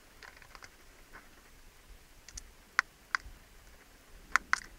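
Plastic clicks from handling a handheld MaxiScan MS309 OBD-II code reader while it is restarted: a scattering of faint clicks, then two pairs of sharper clicks in the second half.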